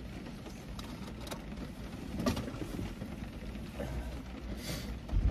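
Rain pelting on the roof of a car, heard inside the cabin as a steady hiss over a low rumble, with a few faint clicks and a brief louder hiss near the end.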